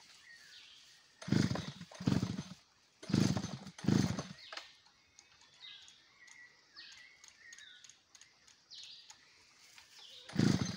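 Howler monkeys roaring: four rough, grunting roars in the first four seconds, a lull with small birds chirping, then roaring again near the end. It is a territorial call made at the people below.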